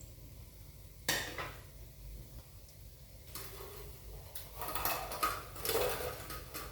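A plate and utensils clattering as food is dished up: one sharp clink about a second in, then a run of clinking and scraping in the second half.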